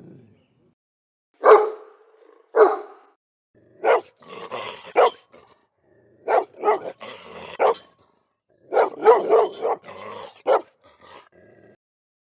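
A dog barking: two single barks about a second apart, then quick runs of several barks with short pauses between, tailing off faintly near the end.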